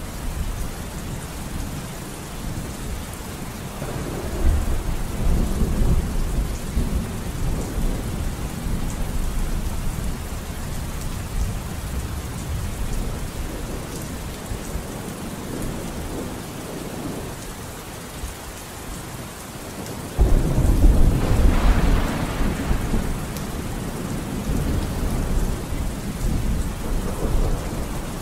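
Steady rain with rumbles of thunder; a louder roll of thunder starts suddenly about twenty seconds in and fades away over several seconds.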